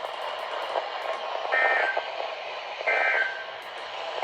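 EAS end-of-message data bursts from a NOAA Weather Radio broadcast: short two-tone electronic bursts, two of them about 1.3 s apart with a third starting at the very end, over steady radio hiss. They are the end-of-message signal that closes a severe thunderstorm warning.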